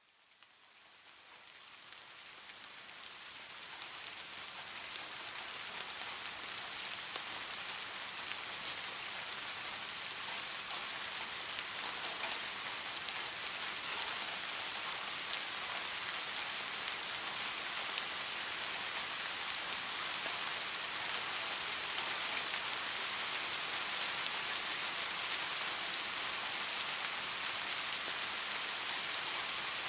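Steady rain falling, an even hiss with fine scattered drop ticks, fading in from silence over the first few seconds and then holding level.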